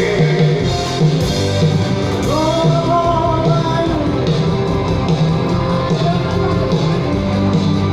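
A man singing into a microphone over amplified instrumental accompaniment with a steady beat, heard through loudspeakers; he holds one long note around the middle.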